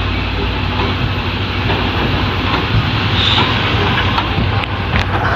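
C11-class steam tank locomotive C11 325 rolling slowly past at close range under its own power, a steady rumble of wheels and running gear on the rails. A short hiss of steam about three seconds in, and a few sharp clicks near the end.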